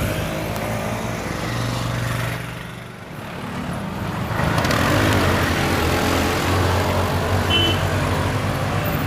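A motor vehicle's engine running steadily, with road and wind noise on the microphone. The noise dips briefly and then grows louder about four seconds in.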